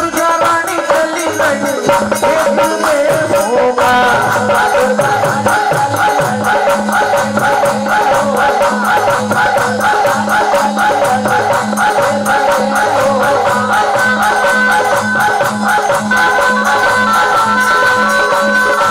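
Instrumental break in a Devi jas devotional folk song: a melody over a steady, even drum beat and rattling percussion.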